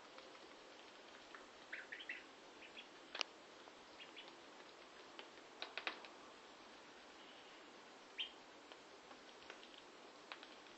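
Faint, scattered clicks and taps of ducklings' bills pecking wet cat food from a foil tray on a tile floor, with a few short, high peeps.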